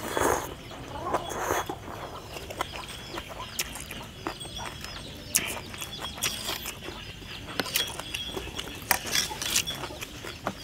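A mouthful of rice noodles slurped in at the start, then scattered sharp clinks of a stainless fork and spoon against a metal tray as the food is picked through. Faint animal calls run in the background.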